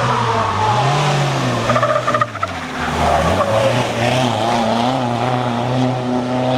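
Rally car engine revving hard, its pitch rising and falling through gear changes. A quick run of sharp pops comes about two seconds in, then the engine picks up again and pulls away.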